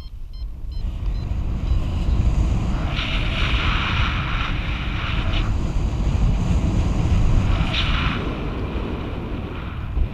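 Airflow buffeting the camera microphone of a paraglider in flight: a heavy rumbling wind noise, with a louder hiss of rushing air from about three to five seconds in and again briefly near eight seconds. A few faint high beeps sound at the very start.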